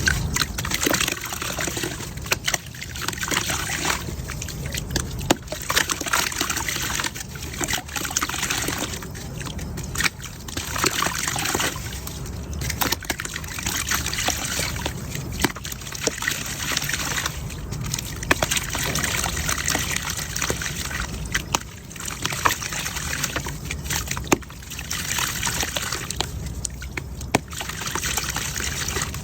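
Chunks of dried mud crumbling and dropping into water. Crackling, trickling and sloshing come in repeated swells a second or two long, with sharp little clicks of breaking pieces.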